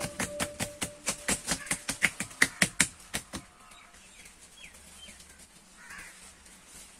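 Hands patting and slapping the outer wall of an upturned clay grill pot: quick, sharp taps about six a second that stop about halfway through.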